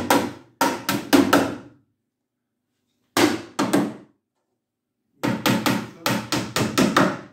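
Hammer driving small nails through a thin board back panel into the pine frame of a bookcase: three runs of quick blows, about five, then three, then about nine, with short pauses between them.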